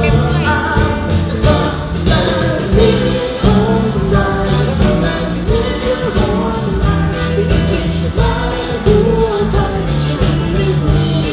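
Live pop band playing a song, with singing over guitar, bass and drums. The sound is dull and unclear, with nothing above the upper midrange.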